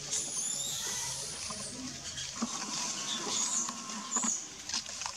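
Outdoor forest ambience: several short, high squeaky chirps and glides over a steady hiss, with scattered faint clicks and rustling.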